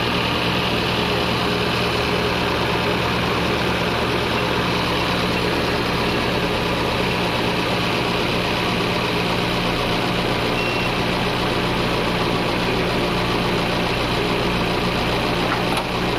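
Toyota 4A-FE 1.6-litre four-cylinder engine idling steadily with its hood open. The mechanic takes its sound for that of over-advanced ignition timing.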